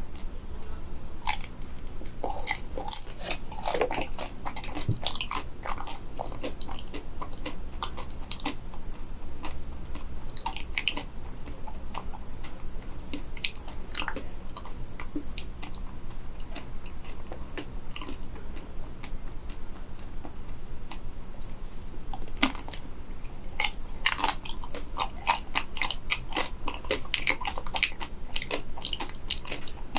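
Close-up biting and chewing of chocolate-coated bananas, the crisp chocolate shell cracking in dense bursts of crunches at the start and again near the end, with sparser chewing clicks between.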